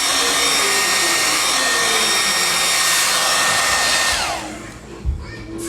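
Handheld hair dryer blowing steadily with a faint motor whine, switched off about four seconds in, its whine falling as it spins down. A single thump follows near the end.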